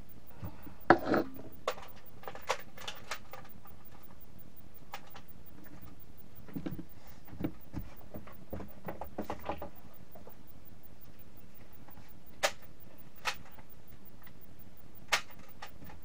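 Scattered sharp clicks and knocks, several close together in the first few seconds, a few faint ones mid-way and three sharp single knocks near the end.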